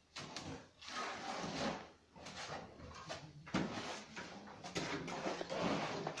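Shovels scraping and scooping mortar in metal wheelbarrows: a run of irregular scrapes, roughly one a second.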